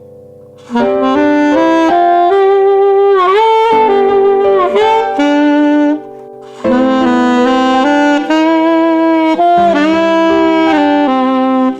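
Alto saxophone played with a tenor-size Imperial Black reed on its alto mouthpiece, sounding a melody in two phrases with a short break about six seconds in. A piano chord is fading at the start before the saxophone comes in under a second in.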